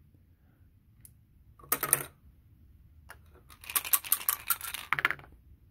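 Dice for a tabletop baseball game being shaken and rolled onto a hard surface. A short clatter comes about two seconds in, then a longer run of rapid clicks and rattles lasting about a second and a half.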